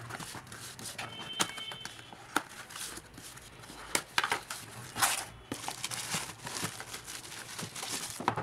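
Scissors cutting packing tape and cardboard box flaps being pulled open, then plastic bubble wrap crinkling and rustling as a boxed phone is drawn out. The sound is a run of clicks and rustles, loudest about halfway through.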